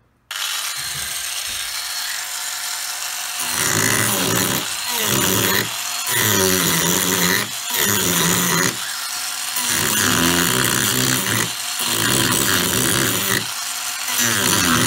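A Proxxon right-angle grinder fitted with a 50 mm, 8-tooth mini chainsaw carving disc switches on about a third of a second in and runs free for about three seconds. It then bites into wood in repeated carving passes, each a second or so long, with short breaks between them as the disc is lifted and set back in.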